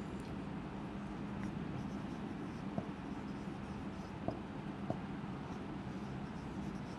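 Dry-erase marker writing on a whiteboard: faint scratching strokes with a few light taps of the tip, over a steady low hum.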